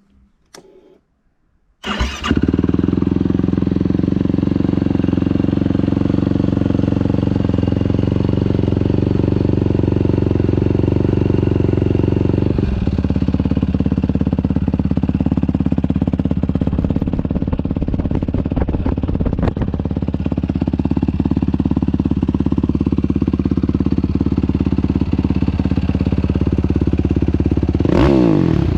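Yamaha sport ATV's single-cylinder four-stroke engine, fitted with an RP race exhaust, starting about two seconds in and then idling steadily through the open exhaust. The idle note changes about halfway through, and near the end the throttle is blipped once, the pitch rising and falling.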